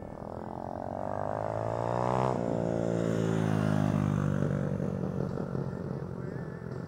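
Small dirt bike engine riding past close by: its pitch climbs, drops sharply about two seconds in, and the engine fades toward the end.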